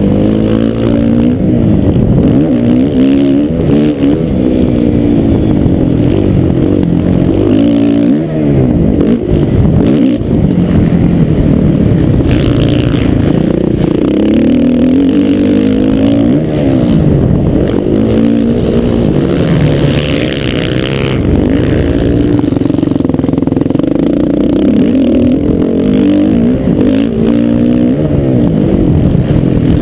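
Motocross bike engine heard close up from the rider's helmet, revving up and dropping back again and again as the rider accelerates, shifts and slows through the track's corners and jumps.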